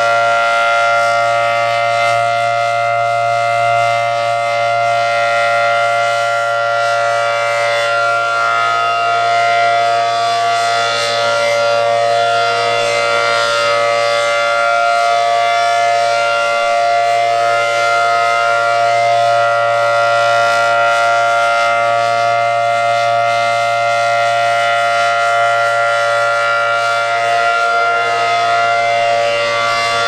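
ACA Allertor 125 rotating outdoor warning siren with a 10/12-port rotor sounding its Alert signal at full speed: a loud, steady two-tone chord holding one pitch, swelling and dipping slightly in volume as the horn turns.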